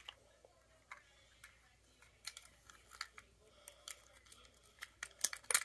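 Light, scattered clicks and taps of small plastic toy train pieces being handled, with a cluster of sharper clicks near the end.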